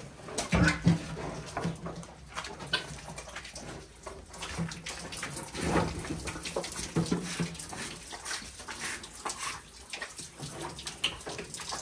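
An ox eating feed from a concrete trough, with irregular chewing, licking and crunching noises.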